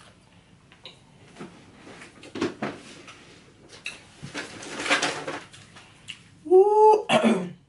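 A person's mouth noises while eating very hot-spiced fried shrimp: faint chewing and clicks, a breathy hiss about five seconds in, then a loud vocal cry that rises in pitch near the end, a reaction to the burning heat of the sauce.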